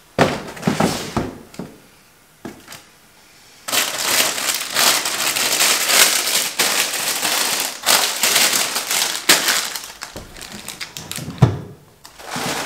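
Hands rummaging through a basket of craft supplies: plastic packaging crinkling and small items clattering. A brief bout at first, a quieter moment, then steady crinkling from about four seconds in, with a single knock near the end.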